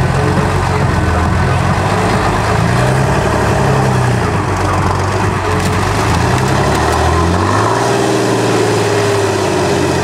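A large vehicle engine running loud, its pitch shifting up and down as it is revved.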